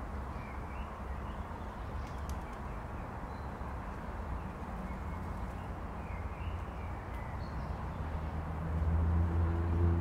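Park ambience: a steady low rumble of distant city traffic, with sparse, faint bird chirps. Near the end a deeper hum swells louder for a second or two.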